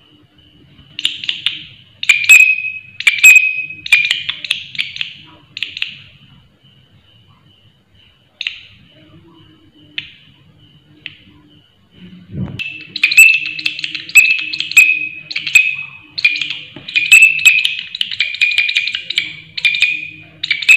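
Green katydid stridulating: loud rasping chirps about one a second, a run of five in the first few seconds, a pause, then a longer run of about eight chirps near the end. A faint steady high buzz continues between the runs, and a single low thump comes just before the second run.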